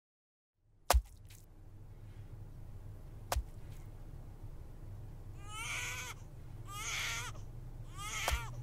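Out of silence a low hum comes in with a sharp knock, and a second knock follows a couple of seconds later. Near the end come three short crying wails about a second apart, the last one with another knock.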